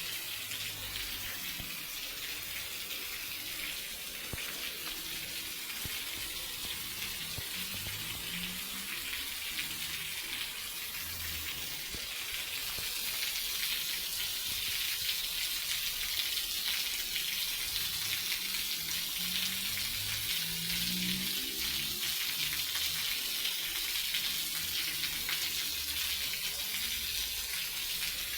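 Steady rain falling, an even hiss that gets a little heavier about halfway through.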